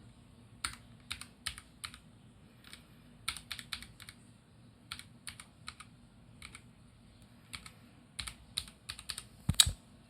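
Keys of a computer keyboard pressed one after another in irregular bursts, single taps and quick runs of clicks, with the loudest clacks near the end: a keyboard being tested key by key before it is shipped.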